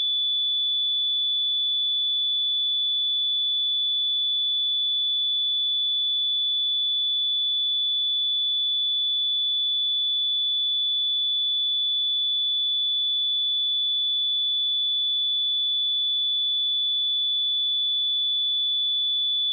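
Pure 3466 Hz sine-wave test tone, one steady high-pitched whistle at constant level without a break.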